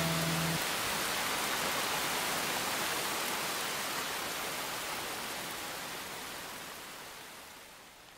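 The last held notes of the music stop just after the start, leaving a steady rain sound from the performance soundtrack that slowly fades out.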